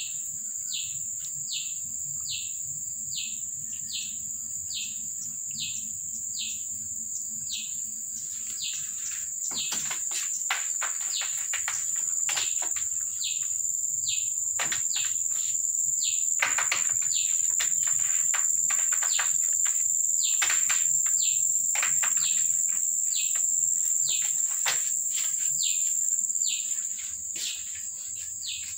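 Steady high-pitched insect trilling with a short, falling chirp repeating about once a second. From about ten seconds in, a dense run of sharp chirps joins in and the sound grows louder, then thins out near the end.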